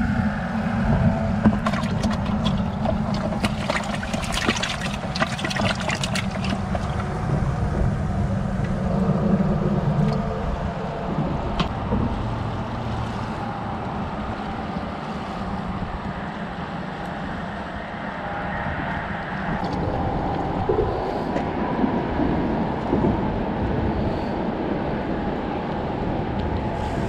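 Aerator air hose bubbling in a bucket of live shrimp, with crackling bubbles in the first few seconds. Then water lapping against a rocky shore, over a steady low rumble.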